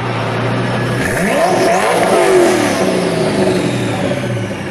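Koenigsegg Agera's twin-turbocharged V8 engine revved once: the note climbs steeply from about a second in, peaks around two seconds, and drops back to a steady idle.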